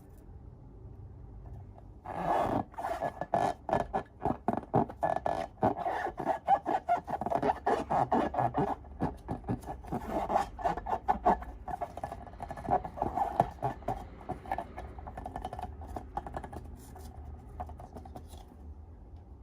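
Rapid rubbing and scraping strokes, several a second, as slime and balloons are worked by hand. They start about two seconds in and thin out near the end.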